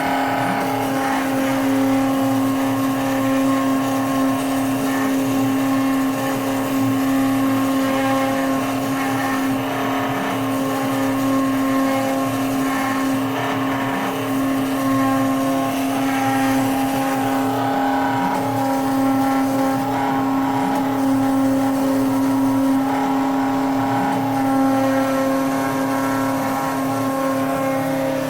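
CNC router spindle running at a steady high pitch while milling a printed circuit board, the tone holding constant throughout.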